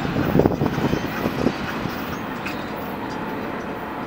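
Intermodal freight train rolling away past a grade crossing: a steady rumble of wheels on rail, with a few knocks in the first second and a half, then slowly fading.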